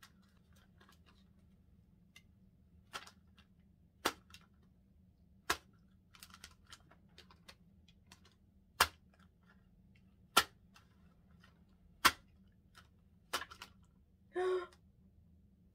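Thin plastic candy mold clicking as it is flexed and pressed to free a stuck jelly candy: about seven sharp clicks a second or two apart, with soft plastic crinkling between them.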